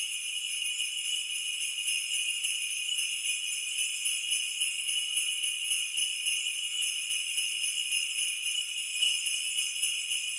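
Sleigh bells jingling in a steady, continuous shake, high and bright with nothing lower beneath them: the sleigh-bell part of a Christmas music track.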